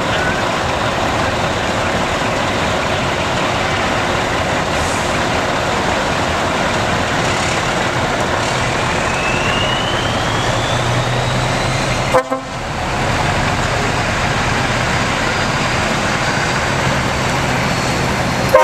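Heavy show trucks driving past in a slow procession, their diesel engines running steadily. A short horn toot sounds about twelve seconds in, and another right at the end.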